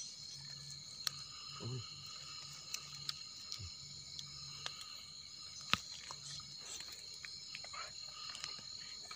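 Steady chorus of night insects such as crickets, a continuous high trilling, with scattered sharp clicks and soft scrapes as termite mushrooms are pulled and handled out of the soil; one louder snap a little past halfway. A brief human murmur comes early on.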